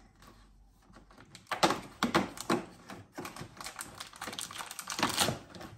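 Irregular clicks and taps of a dog-treat advent calendar being opened by hand, its door and the treat packet inside handled, starting about one and a half seconds in.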